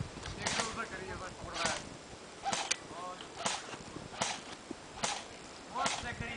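Airsoft guns firing single shots, about seven sharp cracks at irregular intervals roughly a second apart.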